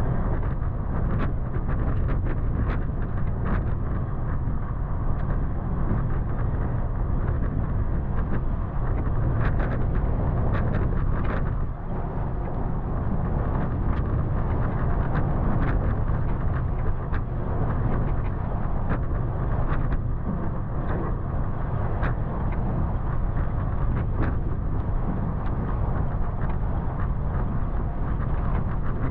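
Toyota FJ Cruiser's 4.0-litre V6 and tyres rumbling steadily as it drives slowly along a rough off-road trail, with scattered sharp clicks and knocks throughout.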